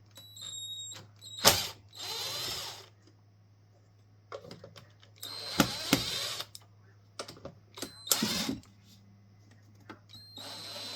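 Small cordless power screwdriver running in about five short bursts with a high whine, backing out the screws that hold a speaker cabinet's front.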